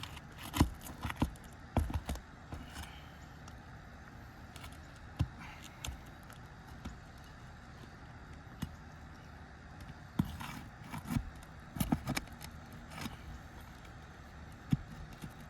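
Roof snake being worked under asphalt shingles to break their seal strips: irregular clicks, scrapes and light crackles in clusters, with pauses between.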